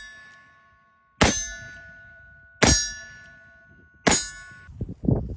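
Four loud metallic clangs, about a second and a half apart, each ringing on with several clear tones. The last ring cuts off suddenly near the end.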